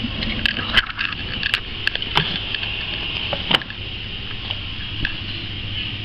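Front-loading washing machine filling with water during the main wash of a coloureds 40° cycle: a steady hiss of incoming water over a low hum from the turning drum, with several sharp clicks and knocks in the first few seconds.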